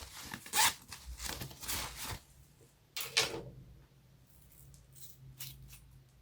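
Homemade slime being kneaded and stretched by hand, with irregular sticky squishing and crackling, busiest in the first two seconds and with one louder squelch about three seconds in.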